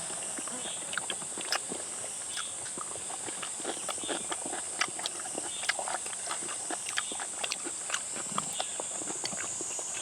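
Chewing and lip-smacking on chewy boiled beef head meat: a run of irregular short wet clicks and smacks, over a steady high-pitched hiss.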